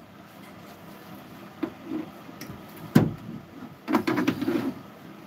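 Household handling noises: rustling and small clicks, with one sharp knock about three seconds in and a few short, low bumps.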